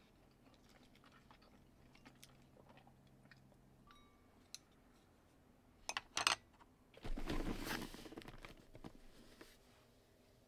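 Quiet mealtime tableware sounds. Faint clicks of chopsticks against ceramic dishes come first, then two sharp clinks about six seconds in and a short scraping rustle as the emptied dishes are handled.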